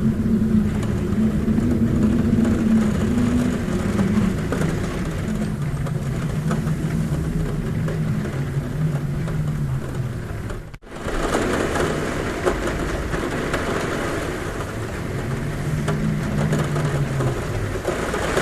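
Heavy rain on a roof, a steady hiss, with a low droning hum underneath that slowly wavers and sinks in pitch. The sound cuts out for an instant about eleven seconds in.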